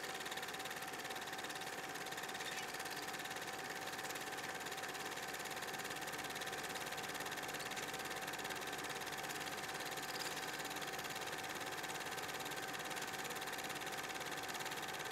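A steady, unchanging hiss with a faint constant hum running through it, starting abruptly after silence.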